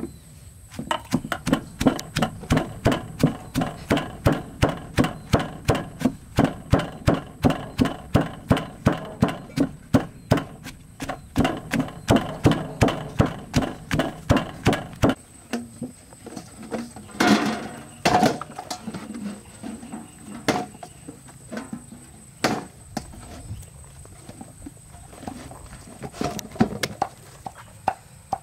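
Stone pestle pounding sliced lemongrass in a heavy stone mortar, steady strokes about two a second, turning to slower, scattered knocks in the second half.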